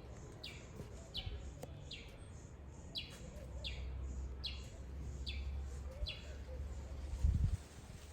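A bird repeating one short downward-sliding call at an even pace, a little more than once a second, stopping about six seconds in, over a low rumble. A loud low thump near the end.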